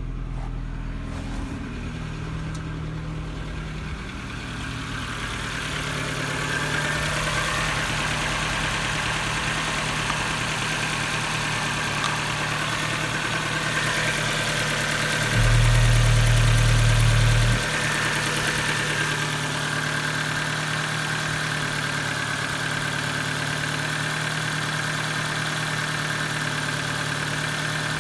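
Ford Focus 2 1.6-litre four-cylinder petrol engine (HWDA) idling steadily. It grows louder over the first few seconds, and a louder low rumble rises over it for about two seconds midway.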